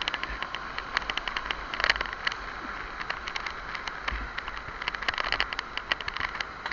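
Rushing, splashing whitewater with a dense run of irregular crackles, and wind rumbling on the microphone.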